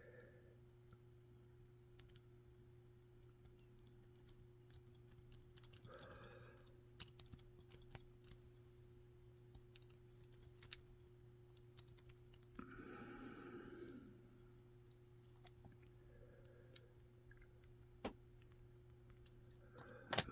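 Faint, irregular small clicks of an improvised rake, made from a clothespin spring, working the pins inside a UGR monoblock padlock under a lighter-made tension tool, with a steady low hum underneath.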